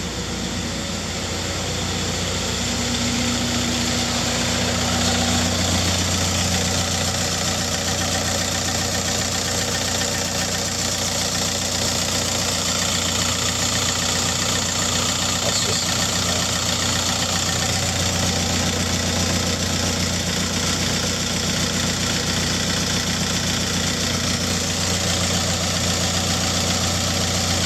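Ford Transit Connect's turbo-diesel engine idling steadily at normal operating temperature, heard close up with the bonnet open.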